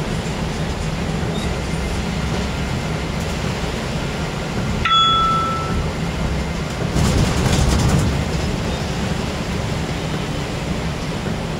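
Steady low rumble of a vehicle in motion, with a short electronic chime about five seconds in and a louder rush of hiss a couple of seconds later.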